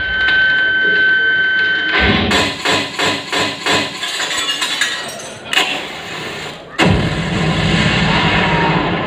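Sci-fi style electronic dance soundtrack played over an auditorium's sound system: a held high tone, then a fast run of sharp thuds, a hit about five and a half seconds in, and a heavy hit near seven seconds that opens into fuller sound.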